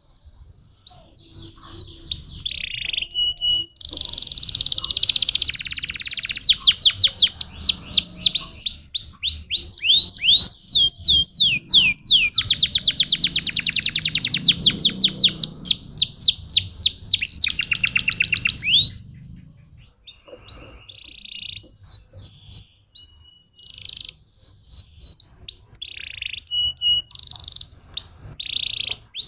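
Domestic canary singing in long runs of fast repeated trills and rolling notes, loudest in the middle. The song breaks off about two-thirds through, and shorter phrases follow.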